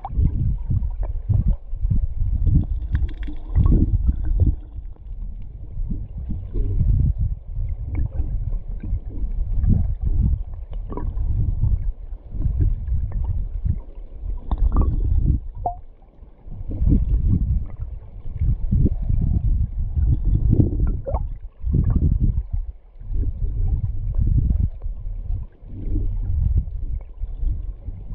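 Shallow river current heard underwater: a low, churning rumble that swells and ebbs in irregular surges, with scattered short knocks and clicks.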